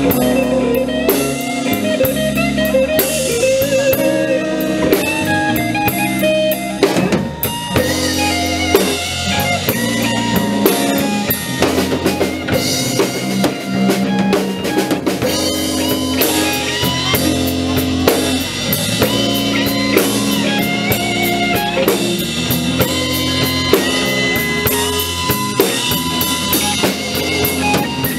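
Live blues band playing a minor-key instrumental passage: electric guitar lines over drum kit and bass guitar, with no vocals.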